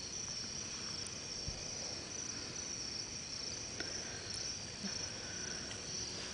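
A steady, high-pitched chorus of crickets at night, with a couple of faint knocks.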